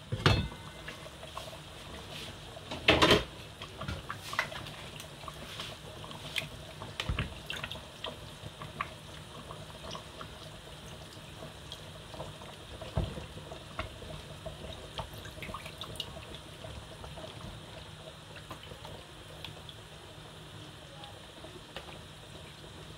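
Fish pieces being put into a simmering stew in a metal pot. There is a clatter about three seconds in as the pot lid comes off, then scattered light knocks and wet splashes over a faint steady bubbling.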